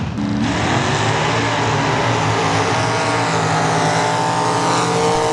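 Engines of modified mud-racing trucks running at full throttle down a dirt track, their pitch rising steadily as they accelerate.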